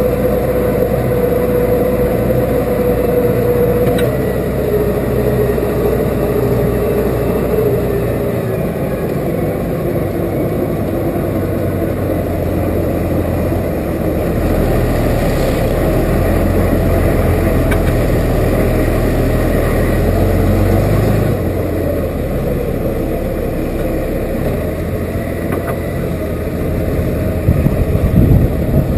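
Case 5130 tractor running steadily, with a whine over the engine drone that steps slightly lower in the first seconds and an engine note that shifts a few times. A few louder knocks or clatters come near the end.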